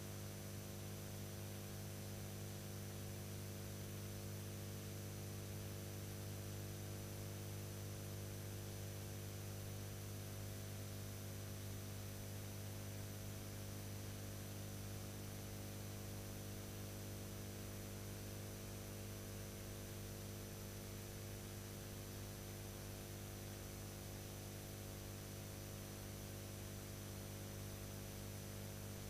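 Steady electrical mains hum, a low drone with a stack of fixed overtones, over constant hiss. It does not change.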